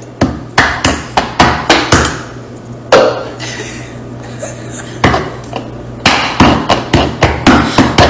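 A rapid series of sharp knocks on a granite countertop, hands striking the counter beside an upturned glass. They come in two quick runs of about three to four knocks a second, with a pause of a couple of seconds between.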